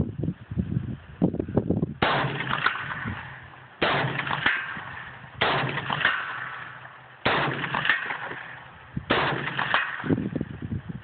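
DPMS Panther Arms Sweet 16 AR-15 rifle firing five single shots, spaced about two seconds apart. Each shot cracks sharply and then dies away over a second or more.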